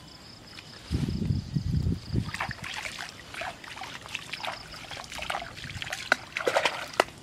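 Hands splashing and dribbling in shallow muddy water while groping along a bank for fish, with many small sharp splashes through the second half. A low rumble about a second in, and an insect's high pulsing drone at the start.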